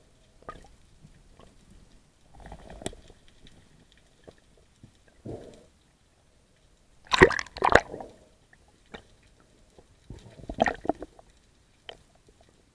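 Underwater water noise picked up through a diver's camera housing: irregular swishing and sloshing bursts a few seconds apart, the loudest pair about seven seconds in.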